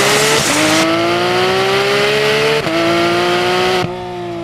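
Race-car engine sound effect accelerating, its pitch climbing in long sweeps and dropping back like gear changes about half a second in, past two and a half seconds, and near the end.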